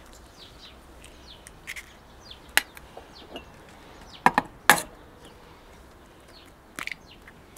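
Eggs being cracked on the rim of a bowl: a few sharp knocks and cracks, the loudest coming in quick succession about four to five seconds in. Birds chirp faintly in the background.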